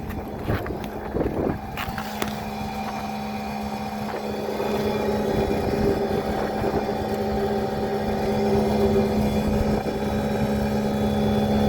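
Bryant rooftop package unit's VFD-driven blower running with a steady hum that swells slightly about four seconds in, with wind buffeting the microphone. A few brief knocks in the first two seconds or so.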